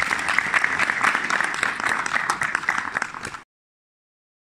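Audience applauding, many people clapping densely, which cuts off suddenly about three and a half seconds in.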